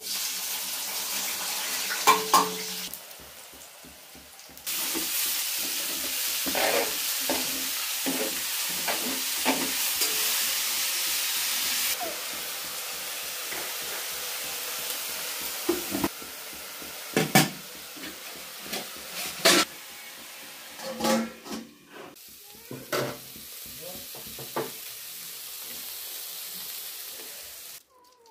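Chopped radish leaves frying in an aluminium pan with a steady sizzle. A metal ladle clatters and knocks against the pan now and then as they are stirred, loudest a little past the middle.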